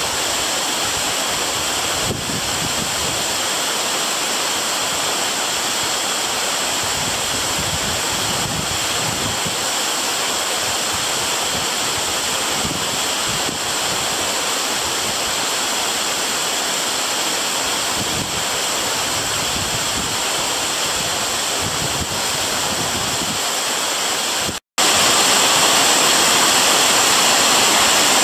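Waterfall, a steady rush of falling water. It drops out for an instant near the end and comes back louder.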